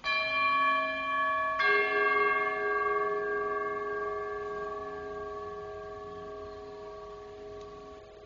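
A metal altar bell struck at the elevation of the chalice: two strikes about a second and a half apart, the second adding a lower tone, the ringing fading away slowly.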